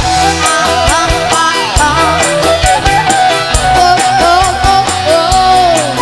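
Live dangdut band music, an instrumental passage with a melody that bends in pitch over a bass line and a steady drum beat.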